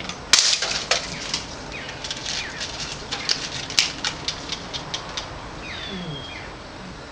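A sharp crack about a third of a second in, then a run of irregular clicks and taps. Birds chirp a few times in the background.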